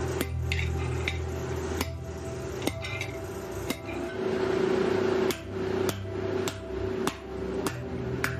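Hammer blows on a cold chisel cutting a circle out of a steel plate on a steel block: sharp metallic strikes about once a second. A steady hum runs behind them.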